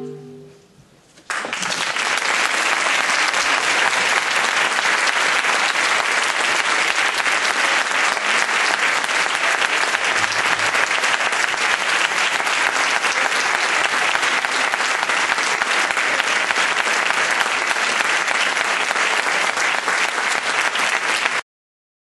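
The ensemble's last held chord dies away. About a second in, an audience breaks into loud applause, which stays steady until it cuts off abruptly near the end.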